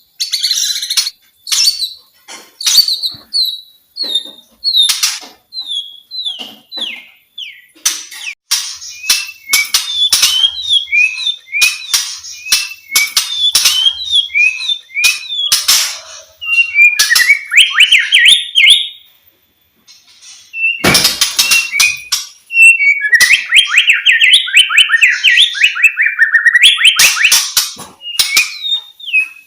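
White-rumped shama (murai batu) singing: strings of short whistled notes and sharp clicks, breaking into fast, dense warbling runs, with a short pause about two-thirds of the way through.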